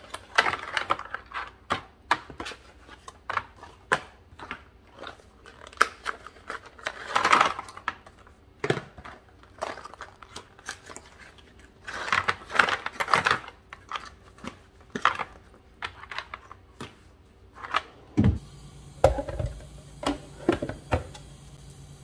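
Shopping items being handled and put away: a string of clicks, knocks and packaging rustles, with longer bursts of rustling now and then. About three-quarters of the way through, a steady low hum comes in under the handling noise.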